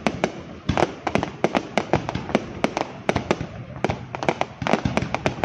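Aerial fireworks going off in a dense, irregular barrage: many sharp bangs, several a second, over a continuous noisy background.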